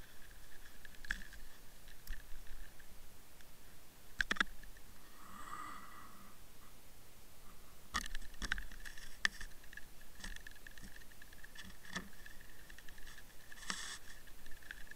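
Scattered muffled clicks and knocks, several seconds apart, from an underwater camera housing bumping and scraping against submerged reed stems, over a faint steady high whine.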